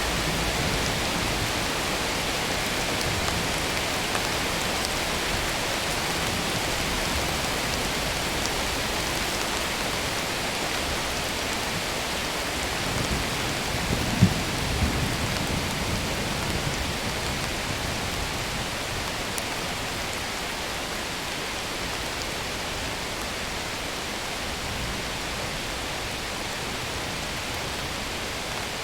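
Steady rain hiss, easing slightly toward the end, with one brief low thump about halfway through.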